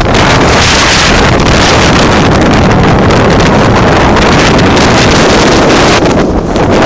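Strong wind buffeting the microphone: a loud, continuous rumbling rush that eases briefly near the end.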